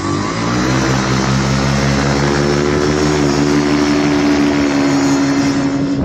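Paramotor's engine and propeller throttling up for the take-off run: the pitch climbs quickly in the first second, then holds steady and rises slowly as the machine lifts off.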